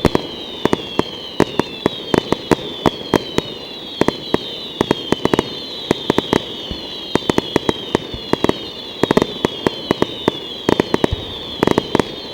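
Fireworks display: a dense, irregular string of sharp pops and cracks from crackling star shells, with some heavier bangs among them.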